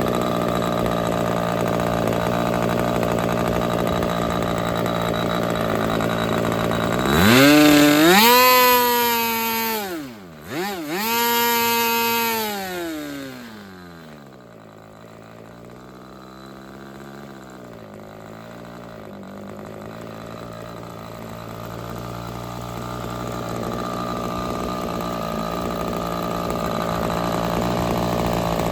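OS 46AX two-stroke glow engine running in after a complete rebuild. It runs steadily, is throttled up sharply to high revs about seven seconds in, dips briefly and picks up again, then drops back to a low idle around fourteen seconds before slowly building speed again.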